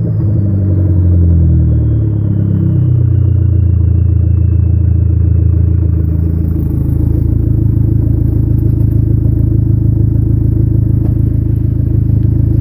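Dodge Neon SRT-4's turbocharged 2.4-litre four-cylinder, run with its electric exhaust cutout open, dropping back from a rev and settling into a steady, loud idle. A faint whistle falls in pitch over the first few seconds as the revs come down.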